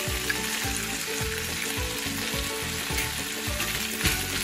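Rice, vegetables and shrimp in green curry sauce sizzling steadily in a hot frying pan as a spatula stirs in a freshly cracked egg.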